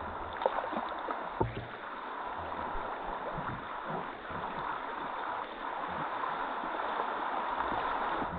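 Rushing water of a river rapid around a canoe: a steady hiss, with a couple of sharp knocks in the first two seconds.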